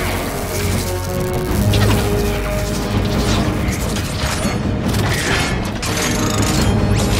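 Film sound effects of robot parts joining and transforming: dense metallic clicking, ratcheting and clanking as Jetfire's parts lock onto Optimus Prime. A film score runs under it, with low booms and some rising sweeps.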